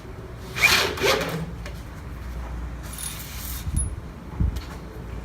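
Wood scraping and rubbing, two short strokes then a longer scrape, followed by two dull knocks near the end.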